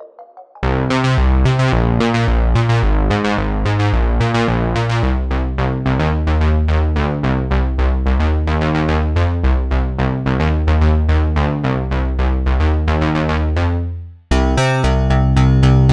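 Cherry Audio Elka-X software synthesizer, an emulation of the Elka Synthex, playing a factory preset. It plays an even run of short decaying notes, about four a second, over a changing bass line. The pattern stops near the end and a different, fuller preset sound begins.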